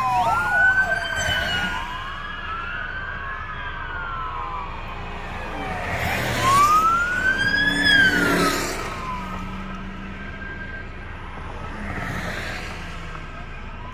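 Police car sirens wailing in slow rising and falling sweeps, heard from inside a car, with two sirens overlapping at first. The wail swells about six to eight seconds in, then fades.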